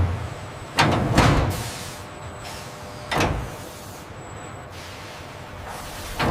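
Factory machinery clunking and hissing over a steady low hum: a sharp clunk at the start, two more about a second in, and another about three seconds in.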